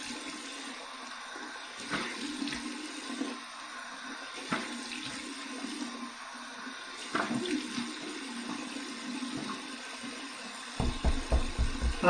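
Water running steadily from a bathroom sink tap, with splashes as cold water is cupped onto a freshly shaved face. A few low thumps come near the end.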